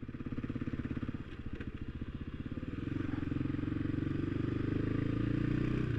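Motorcycle engine running at low speed, its revs picking up a little about halfway through and then holding steady.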